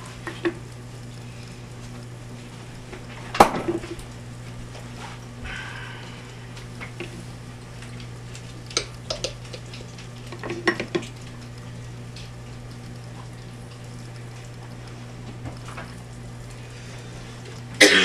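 A metal spoon clinking and knocking against glass jars and an enamel flour pot as sourdough starter is fed with flour, heard as scattered sharp clinks over a steady low hum. The loudest knock comes about three and a half seconds in, small clusters of clinks come around nine and eleven seconds, and another loud clatter comes right at the end.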